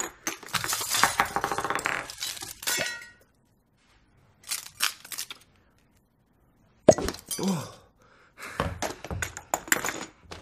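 Glass Christmas ornaments breaking and clinking: clusters of sharp cracks and tinkles, with a short ringing near three seconds and one loud crack near seven seconds.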